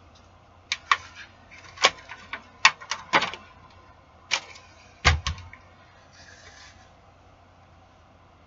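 Crinkling and sharp clicks from an aluminium foil tray as a hand lifts and moves pieces of a baked pork bone on it: an irregular string of clicks over a few seconds, ending in a dull thump about five seconds in.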